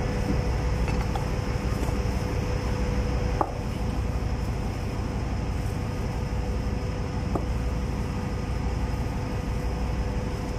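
Steady machinery hum with a constant drone, the background of a ship's engine-room workshop. A light knock about three and a half seconds in as pump parts are handled.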